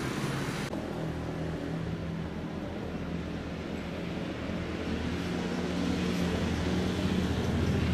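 Street ambience with a steady low hum of a vehicle engine running. Under a second in, the higher hiss drops away abruptly and the hum carries on.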